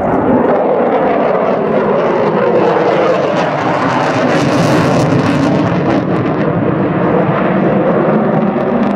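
A display aircraft flying past loudly: the engine pitch slides down through the pass, and a rush of hiss swells about halfway through.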